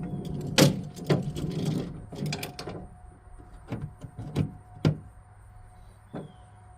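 Hand tools being moved and set down: a run of about eight sharp knocks and clatters, closer together in the first half and sparser later, over a low steady hum.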